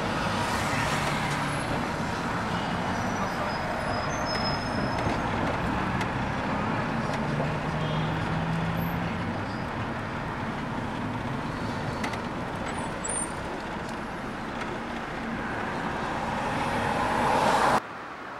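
Ride noise inside a moving city bus: a steady engine hum and road rumble. It swells shortly before the end and cuts off abruptly.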